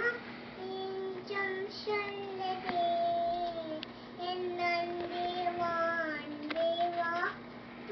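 A young girl singing a slow song, holding long notes in phrases with short breaks between them.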